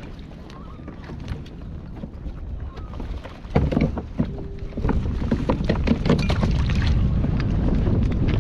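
Wind rumbling on the microphone during crab-pot handling on a kayak, with scattered knocks and water sounds that grow louder and busier from about halfway through.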